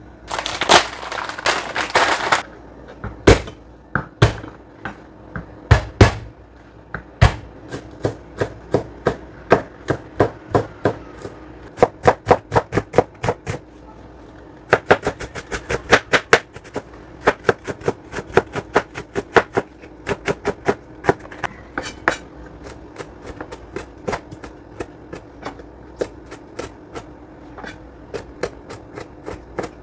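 Knife chopping vegetables on a cutting board in quick runs of about five strokes a second, with short pauses between runs, over a steady low hum. A brief rustling noise comes in the first couple of seconds.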